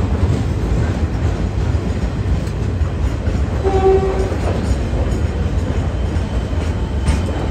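Freight wagons loaded with steel coils rolling past with a steady low rumble, as a Siemens suburban electric train arrives on the next track. A short horn toot sounds about four seconds in.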